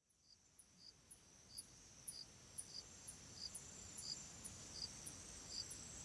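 Chirping insects, like crickets, fading in over the first second or so. A regular high chirp comes about twice a second over a continuous high buzz.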